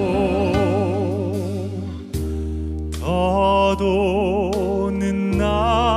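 A deep male voice singing a slow Korean ballad, holding long notes with a wide vibrato over a soft accompaniment with sustained low bass notes. There is a brief break about two seconds in, and a new phrase begins about a second later.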